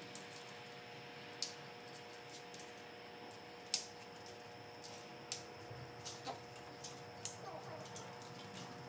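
Scattered sharp clicks, about seven spread unevenly with one louder click near the middle, from hands working through a truck's engine-bay wiring harness, over a faint steady hum.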